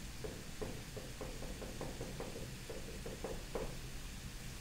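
Marker writing on a whiteboard: a quick run of about a dozen short strokes that stops shortly before the end.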